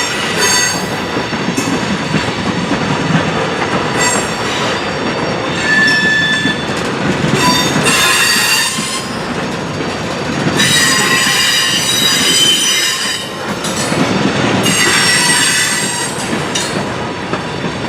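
Freight train cars rolling past with a steady rumble of wheels on rail. High wheel squeal comes and goes every few seconds, the longest stretch about two-thirds of the way through.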